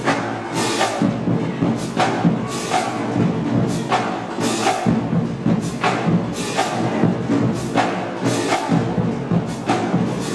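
Marching band playing a parade cadence, drums and cymbals driving sharp hits on a steady beat over the band's lower parts.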